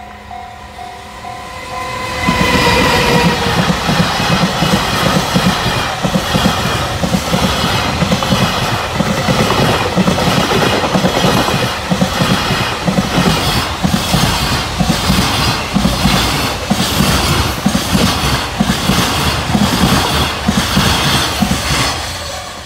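Container freight train hauled by a JR Freight EF210 electric locomotive passing close at speed. It builds up over the first two seconds, with a brief tone dropping in pitch as the locomotive goes by. Then a steady, rhythmic clatter of wagon wheels over the rail joints runs on as the wagons pass, and it fades near the end.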